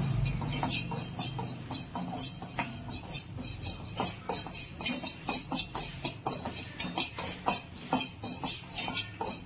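A steel spoon scraping and clicking against the bottom of an empty stainless steel pot as it stirs dry fenugreek seeds roasting over the flame, in quick irregular strokes.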